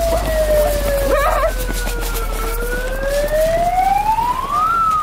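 A siren wailing slowly: its pitch falls, climbs to a peak near the end, then starts to fall again, over a steady low hum.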